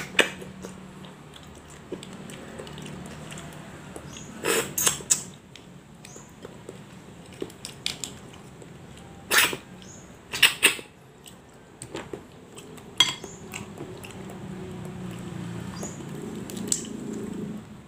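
Mouth sounds of eating by hand: sucking, smacking and chewing on shellfish, with sharp clicks and cracks of shell being broken apart, coming in several short bursts. A faint low hum runs underneath.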